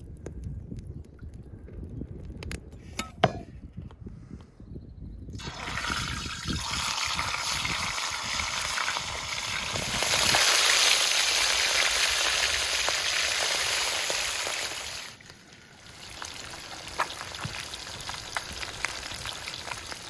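Pieces of carp sizzling in hot oil in a frying pan over a wood fire. The sizzle starts suddenly about five seconds in as the fish goes into the oil, is loudest through the middle, and drops sharply to a quieter sizzle with small ticks near the end.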